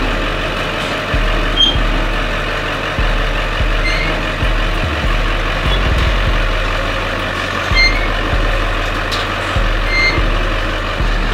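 Monster truck engine running as the truck is driven slowly up onto a trailer, mixed with background music carrying a heavy, stepping bass line.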